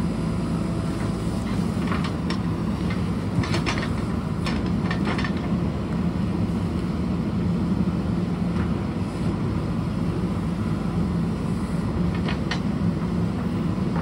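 Backhoe loader's diesel engine running steadily under load, with a handful of sharp knocks and clanks from the machine working dirt and rock: a cluster a few seconds in and two more near the end.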